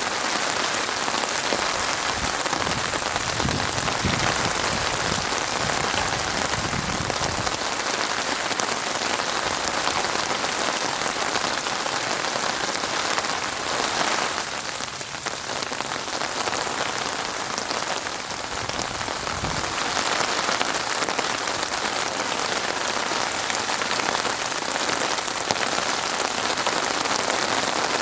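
Steady rain falling, a dense even patter of drops on surfaces, easing slightly for a moment about halfway through.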